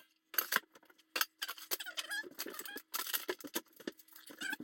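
Clinks, knocks and clatter of a glass measuring bowl and other small kitchen items being picked up and set down on a counter, with brief scrapes and a few short squeaks.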